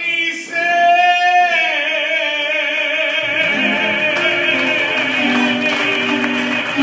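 A man singing into a microphone over a PA, holding one long note with strong vibrato at the close of a song. Guitar accompaniment comes in under the held note about three seconds in.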